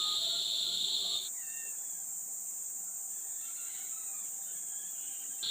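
Insects chirring steadily in a continuous high-pitched drone. The drone stops abruptly about a second in, leaving a quieter background with a few faint falling calls, then starts again near the end.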